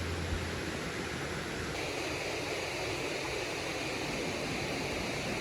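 Steady rush of water pouring down a waterfall. About two seconds in, the sound turns brighter and more hissing.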